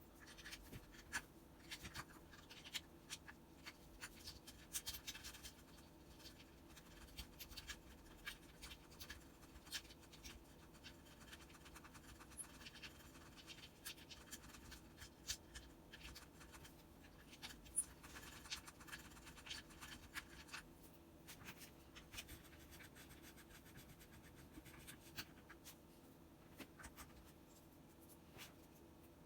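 Faint, irregular small clicks and scraping of hands handling tools and small parts, with a steady low hum underneath.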